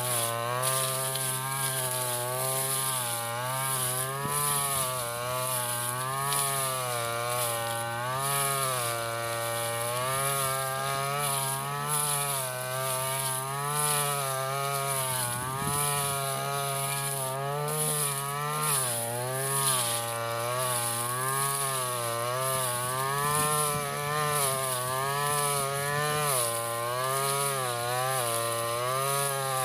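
Stihl FR 3001 backpack brush cutter's two-stroke engine running at high throttle while cutting tall grass, its pitch dipping and recovering every second or two as it takes load.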